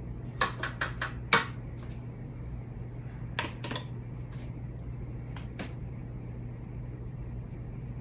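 Scattered light clicks and taps from paintbrushes being handled and set against a plastic plate palette: a quick run of them about a second in, a couple more in the middle, and a few more later, over a steady low hum.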